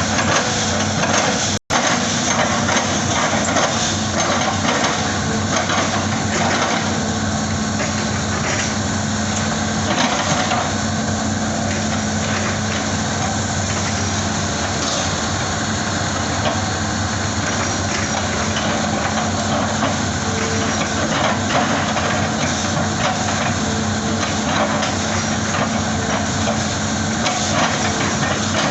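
Hitachi excavator's diesel engine running steadily under a constant drone, with a brief cut-out about two seconds in.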